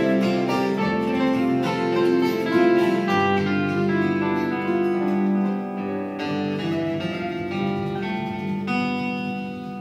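Three acoustic guitars playing a Hawaiian slack-key tune together: plucked melody notes and chords over ringing low bass notes, growing quieter near the end.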